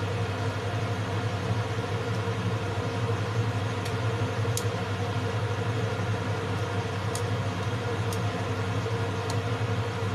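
Steady mechanical hum, with a few faint clicks of a metal spoon against the pot as soup is stirred.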